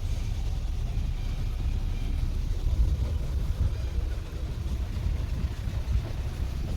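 Gypsy safari jeep running, a steady low rumble of engine and vehicle noise.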